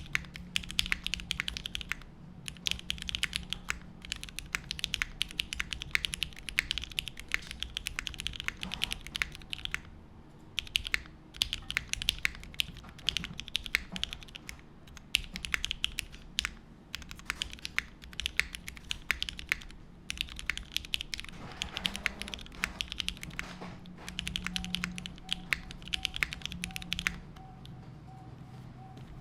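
Typing on a custom mechanical keyboard with lubed Cherry MX Black Ultraglide linear switches, GMK keycaps and an aluminium plate. The keystrokes come in fast runs with short pauses and stop near the end.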